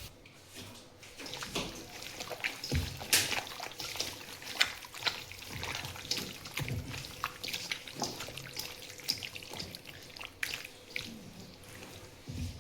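Water trickling and splashing, with many irregular small clicks and a few duller knocks.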